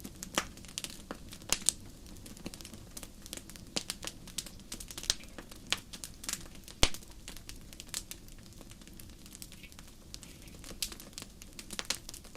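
Wood fire burning in a fireplace: steady low rumble of the flames with irregular crackles and pops, one sharp loud pop about halfway through.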